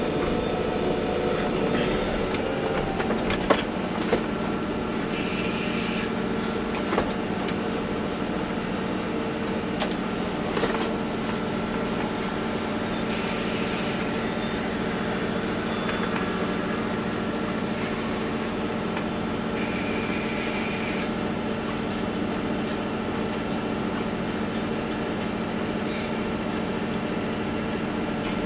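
Volvo EC240B excavator's diesel engine running steadily while it works, with a few sharp knocks in the first ten or so seconds.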